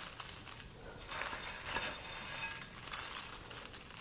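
Dry snack mix of Chex cereal, pretzel pieces, M&Ms, mini marshmallows and pecans being tossed by hand in a bowl: faint rustling with a few light clicks as pieces fall back.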